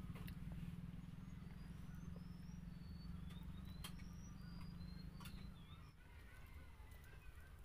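Faint background of short, high bird chirps over a low motor hum that fades out about two-thirds of the way through, with a few light clicks.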